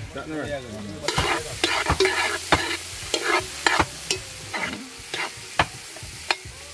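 A metal spoon stirring chopped pumpkin, carrot and scallion frying in a pot over an open wood fire. The food sizzles steadily from about a second in, with sharp clanks of the spoon against the pot roughly every half second.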